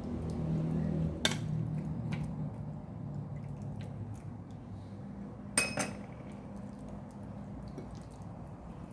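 Kitchen utensils or dishes clinking against each other: one sharp clink about a second in and a quick double clink about five and a half seconds in, over a low steady hum.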